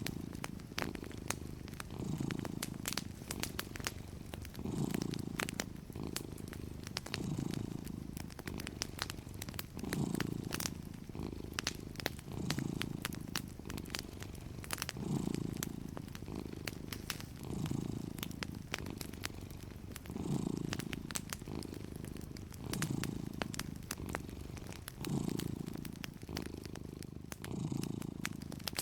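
A domestic cat purring steadily, its low purr swelling and easing about once a second as it breathes in and out. Fireplace crackles, sharp little pops, sound throughout.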